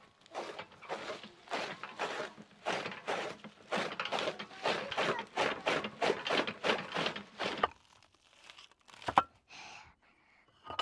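Dry sugarcane leaves and green fodder rustling and crackling in quick, uneven strokes as they are pulled and trodden, stopping a little past halfway through. One sharp knock follows near the end.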